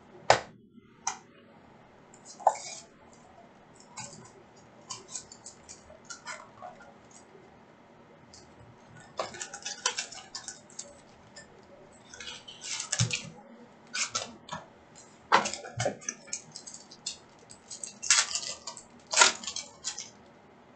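Hands opening a Prizm Mosaic trading-card box. First a few sharp clicks and taps of the cardboard box, then bursts of crinkling and rustling from about nine seconds in as the wrapping and foil card packs are torn and handled.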